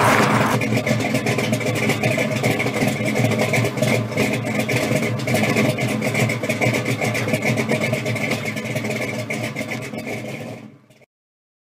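Car engine running steadily, with a rapid, uneven pulse; it fades out and cuts off shortly before the end.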